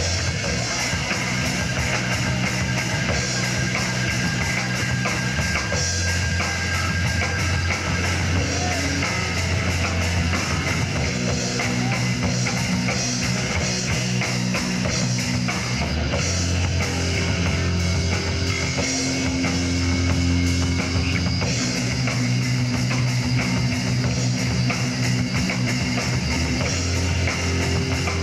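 Live rock band playing: electric guitars and a drum kit, with steady low notes that shift every few seconds.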